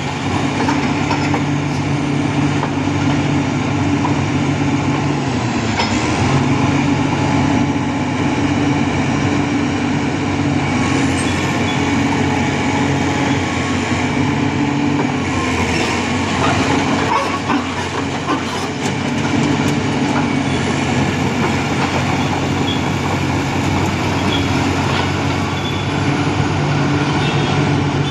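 Heavy diesel engine running steadily with a deep drone, with faint high-pitched squeals rising and falling over it.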